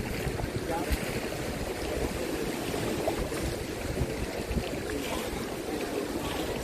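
Pool water sloshing and lapping around a swimmer moving to stay afloat in place, with wind buffeting the microphone.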